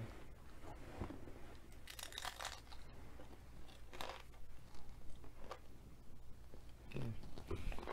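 A person chewing a mouthful of crunchy food close to the microphone, with irregular crunches a second or two apart over a faint steady low hum.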